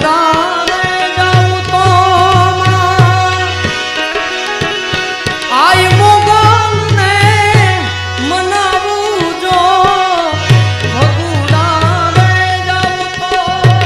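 Live Gujarati folk song: a male voice sings long, ornamented melodic lines over tabla strokes keeping a steady rhythm. The tabla drops out briefly twice.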